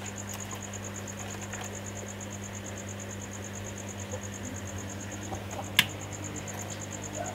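Steady low electrical hum with a high, rapidly pulsing chirp running over it. One sharp click about six seconds in, as the laptop motherboard is handled.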